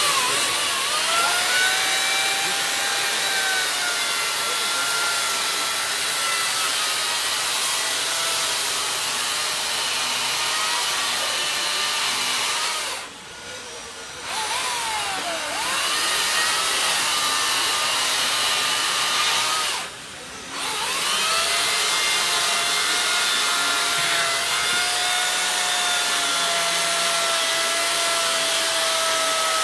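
Electric chainsaw cutting into a block of ice: a steady motor whine with the chain rasping through the ice, the pitch shifting as the saw bites. It stops twice briefly, about 13 and 20 seconds in, then runs again.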